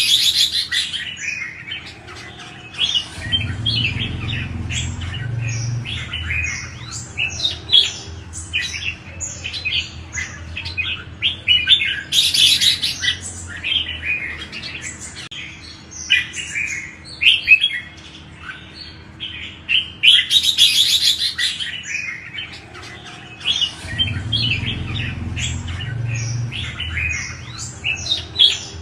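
Red-whiskered bulbuls singing: a dense run of quick, overlapping chirping and warbling phrases, with louder outbursts about a second, twelve seconds and twenty seconds in. A faint steady hum and a low rumble lie underneath, and the same stretch of song recurs after about twenty seconds, as in a looped recording.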